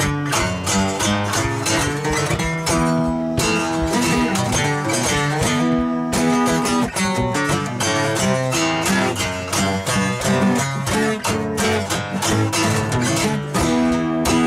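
Two acoustic guitars strummed together, playing chords in a steady rhythm.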